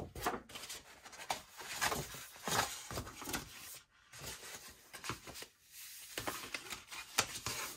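Sheets of cardstock being handled and slid across a cutting mat: irregular rustling and scraping of card with small taps, pausing briefly twice.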